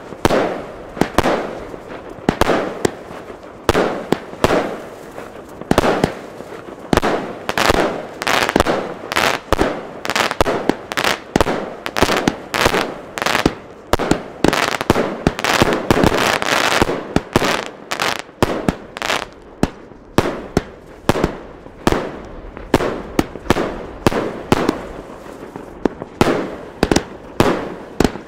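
The Moon Destroyer, a 66-shot consumer firework battery in mixed calibres, firing its shots: a fast, uneven series of launch thumps and aerial bursts, one or more a second. The bangs differ plainly in loudness from calibre to calibre.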